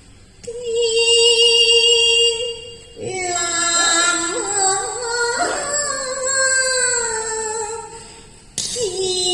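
Cantonese opera music: a melodic line of long held notes that waver and slide, with a new note entering near the end.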